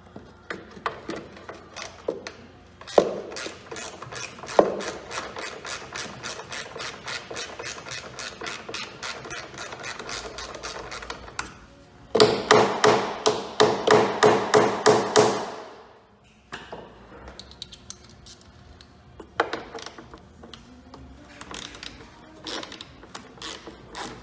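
Hand ratchet clicking in quick, even strokes as it works a Torx bolt on a Freightliner M2's headlight mounting, with two sharp knocks near the start. Midway the clicking turns louder for a few seconds, then dies away into scattered clicks and taps of the tool.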